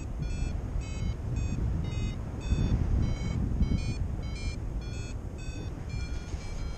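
Paragliding variometer beeping about twice a second, the pitch shifting from beep to beep as it signals climbing in lift. Wind rushes steadily over the microphone underneath.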